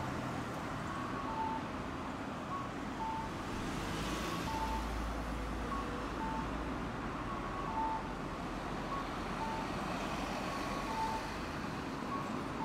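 Electronic two-tone beeping, a lower and a higher beep alternating and repeating about once a second, over steady street traffic noise; a low steady hum comes in about four and a half seconds in.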